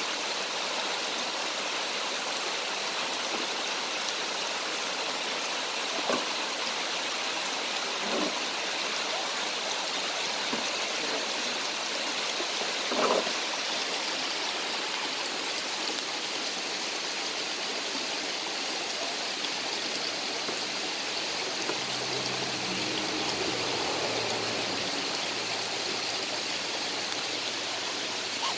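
A creek and waterfall rushing steadily. A few short knocks sound over it, the loudest about halfway through, and a faint low hum comes in for a few seconds near the end.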